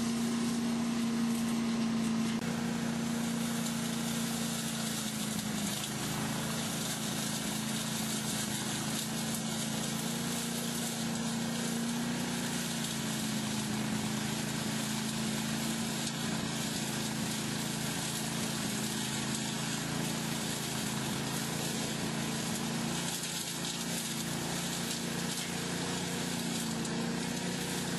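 Agrinova AS10 self-propelled leaf vacuum running steadily, its engine hum under the rush of air and dry leaves drawn up through the suction hose.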